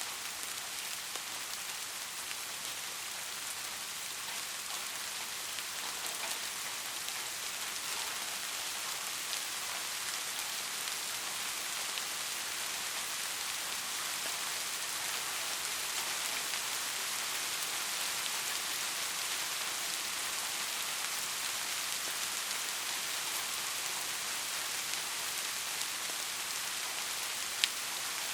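Steady soft rain falling on a surface, an even hiss with scattered drop ticks and one sharper tick near the end.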